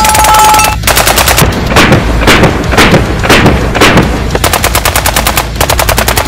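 Genesis Arms Gen 12 semi-automatic 12-gauge shotgun firing full-power loads, shot after shot: a fast string in the first second, then shots about twice a second, then another fast run of several shots a second from about four and a half seconds in.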